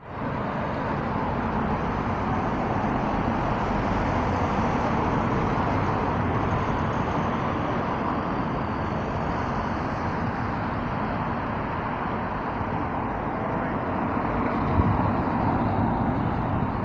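Steady road traffic noise from cars passing on a busy town street, a continuous rumble and tyre hiss that grows a little louder near the end.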